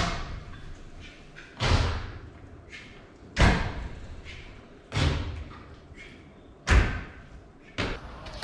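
Six loud, heavy thuds, spaced about a second and a half to two seconds apart, each ringing out briefly after the hit.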